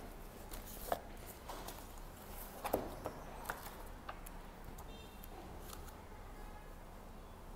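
Handling sounds from a textbook and a backpack: a few sharp clicks and knocks, the loudest a little under three seconds in, then quieter rustling as the book's pages are flipped, over a steady low room hum.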